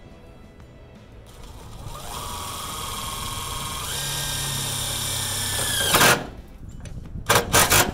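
Cordless DeWalt driver running a stainless steel screw into the snow stop's ice flag bracket: a steady whine that starts about a second and a half in, steps up in pitch about two seconds later and cuts off at about six seconds. Three or four short quick bursts of the driver follow near the end.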